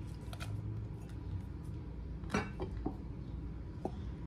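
A few short, light knocks and clinks of a kitchen knife and a ceramic bowl on a wooden cutting board as chopped garlic is scraped into the bowl, the clearest about two and a half seconds in, over a low steady hum.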